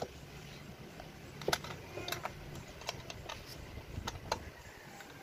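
Small metal clicks and clinks, several at irregular intervals, as bolts and a hand tool work on the steel bracket plate of a salon chair during assembly, over a low steady hum.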